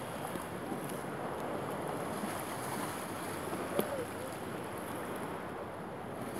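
Lake Huron waves washing against the pier, with wind on the microphone; a single short click about four seconds in.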